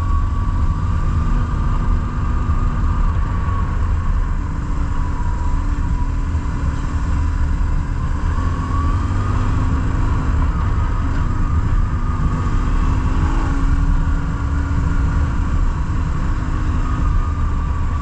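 BMW R1150GS Adventure's boxer-twin engine running at road speed on the move, its note drifting up and down a little with the throttle, under a heavy rumble of wind on the microphone.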